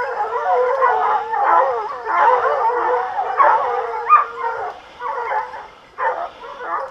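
A pack of hunting hounds baying and howling together, many voices overlapping, thinning into separate cries near the end. The hounds are giving tongue on a wild boar.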